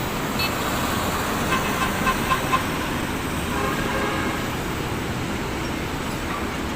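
Steady road traffic noise with a few short horn toots about two seconds in.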